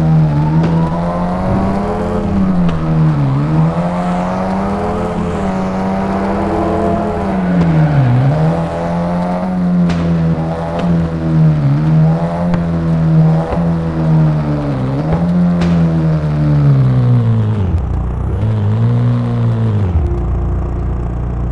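Vehicle engine fitted with a 'turbo tornado' intake device, revving: it is held at high revs with repeated quick dips and pick-ups, then the revs fall and rise once more and settle lower near the end.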